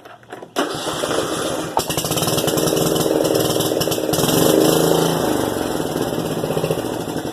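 Troy-Bilt TB30R riding mower engine cranking on the starter and catching within about a second, then running, swelling louder for a moment near the middle. It starts now that the safety interlock plunger under the mulching cover is pressed in.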